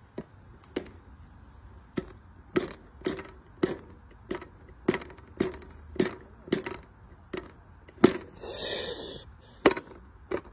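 Light taps on the lid of an aluminium mess tin with a thin rod, each a sharp clink with a short ring, about two a second. A short hissing noise comes about eight seconds in.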